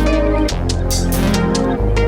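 Electronic dance music: sustained synth chords over a heavy sub-bass that changes note about every second and a bit, with a steady beat of crisp high percussion.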